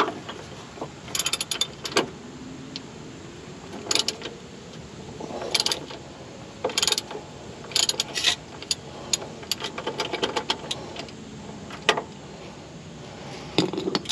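Craftsman socket ratchet clicking in repeated short bursts of quick clicks as it is worked back and forth, loosening the oil filter with a cap-type filter wrench.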